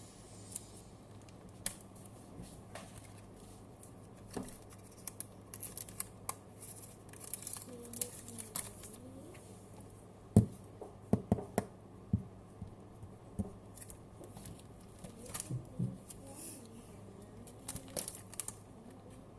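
Match Attax trading-card packs being torn open and the cards handled: scattered crinkles and sharp clicks, with the loudest run of clicks about halfway through.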